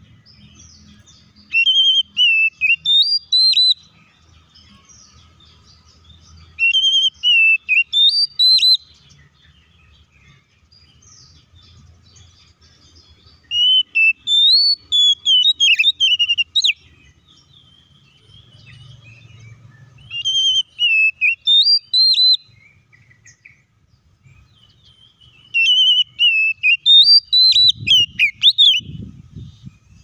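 Oriental magpie-robin singing: five phrases of quick whistled notes gliding up and down, separated by pauses of a few seconds. A couple of low thumps come near the end.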